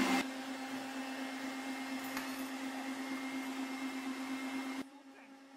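Electric stand mixer motor running steadily at speed, its beater whipping whole eggs with salt and water to a foam. The sound drops much quieter about five seconds in.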